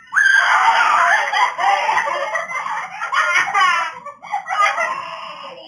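A person's loud, high-pitched shrieking and wailing in reaction to the burning heat of a very spicy pepper just eaten. It bursts out at once and trails off toward the end.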